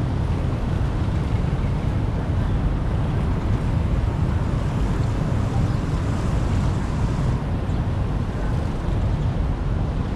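Steady rushing of floodwater, an even roar heaviest in the low end with no distinct knocks or tones.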